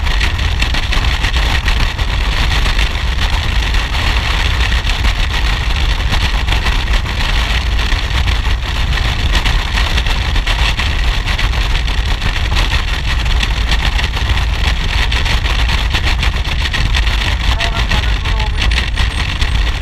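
Motorcycle cruising steadily on the road: a low, even engine rumble under heavy wind rush buffeting a helmet-mounted microphone.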